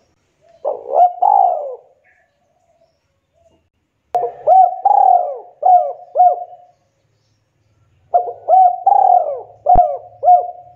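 Spotted dove cooing: three calls, each a run of hoarse coos, the first short and the next two longer with about five notes each. A brief click sounds during the last call.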